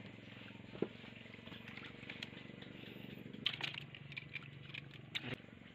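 Faint steady low hum that stops near the end, with a few sharp knocks and clicks from handling aboard a small wooden boat.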